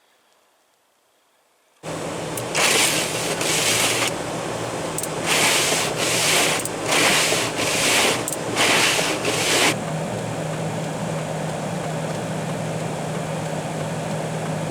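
Footsteps crunching in snow, about eight steps in uneven pairs, over a steady low hum that starts suddenly about two seconds in and runs on after the steps stop.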